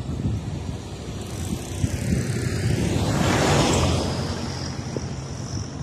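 A car passing close by, its noise swelling to a peak about three and a half seconds in and then fading, over a steady rumble of wind on the microphone of a moving bicycle.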